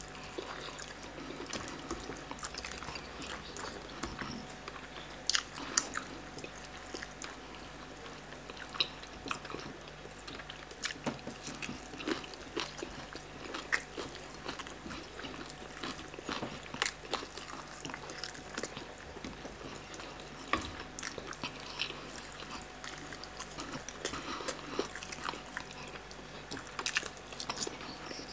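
Two people eating chicken by hand: biting, chewing and tearing at the meat, heard as many scattered short smacks and clicks.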